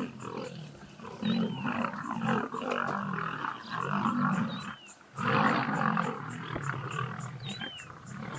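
A big cat roaring and growling in long, rough calls, with a short lull about five seconds in. A bird's short falling whistle repeats three times above it.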